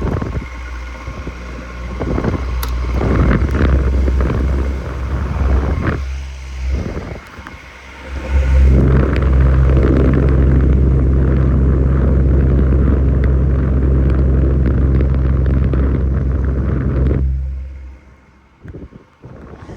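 Stand fan running with a steady low motor hum and air rushing over the microphone. The hum dips briefly near the middle, comes back louder and steadier, then dies away sharply near the end, leaving a few faint knocks.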